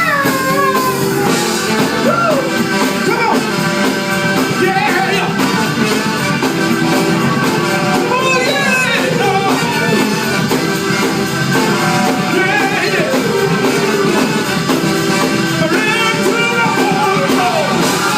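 A song playing: a singer's voice with vibrato over a backing band.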